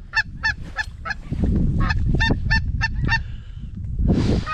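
Snow geese calling: a rapid run of short, high honks, about three a second, with a brief pause a second or so in. A low rumble sits under the calls from about a second and a half in.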